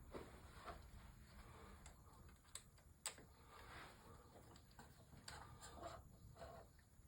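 Faint clicks and light rustling of small metal parts being handled by hand, with a sharp tick about three seconds in.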